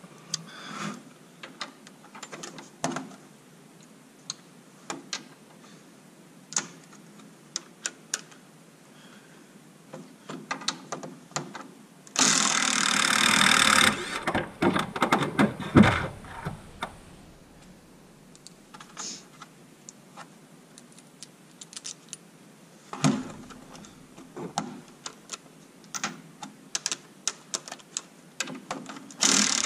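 Small metal parts and tools clicking and clattering on a metal workbench, with a Ryobi cordless power driver running for about two seconds near the middle to undo a bolt on the supercharger's front, then a quick run of clicks. Another short burst of the driver comes right at the end.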